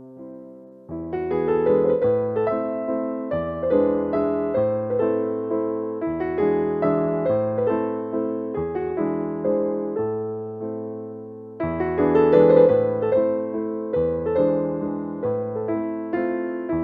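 Gentle solo piano music, slow notes and chords each struck and left to fade; it fades on a chord at first, then picks up again about a second in.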